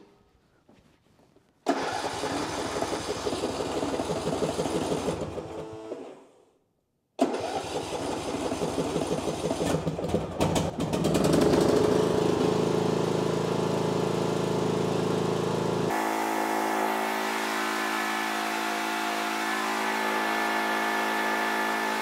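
John Deere 100-series riding mower engine starting about two seconds in, running briefly, then dying away about six seconds in: the mower won't stay running. A second later it is running again, and about two-thirds of the way through the sound turns to a steady hum of several held tones.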